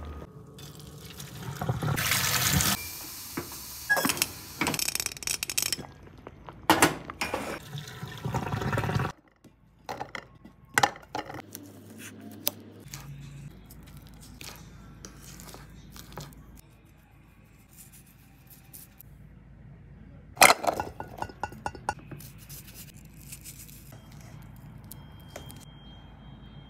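Water being poured off boiled potatoes from a steel pot, splashing loudly in two spells, then scattered clinks and knocks of dishes and utensils, with one sharp knock standing out about twenty seconds in.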